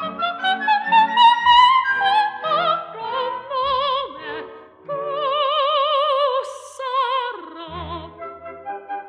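Background music: an operatic voice rising, then holding long notes with a wide vibrato over instrumental accompaniment.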